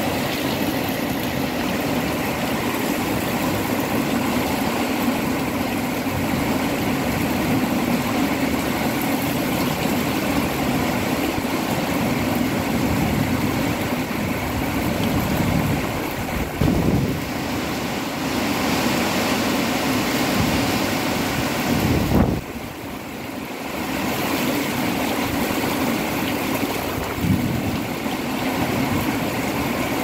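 Heavy rain falling in strong, gusty wind: a steady rushing noise, with louder gusts about 17 and 22 seconds in.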